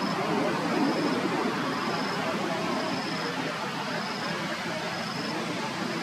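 Steady outdoor background noise with a faint, short, high-pitched chirp repeating about once a second; no monkey call is heard.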